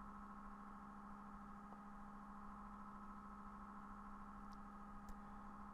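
Near silence with a faint, steady hum made of a few even tones.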